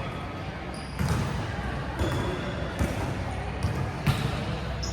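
A volleyball being hit and bouncing on a gym floor: several sharp thuds about a second apart, echoing in the hall.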